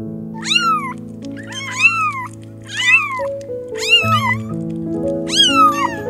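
A kitten meowing repeatedly, about six short high mews roughly a second apart, each rising then falling in pitch, over soft piano music.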